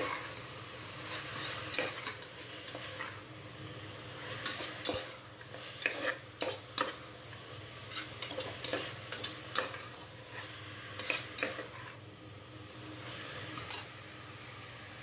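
Slotted steel spoon scraping and clinking irregularly against the inside of an aluminium pressure cooker as chopped vegetables and herbs are stirred, with a steady sizzle of the vegetables frying in ghee underneath.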